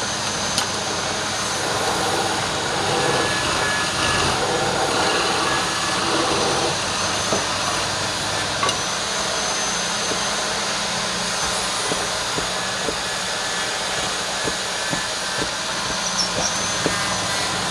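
Wood lathe running, with a turning tool cutting the spinning wood in a steady hiss; from about halfway through, short ticks come every second or so.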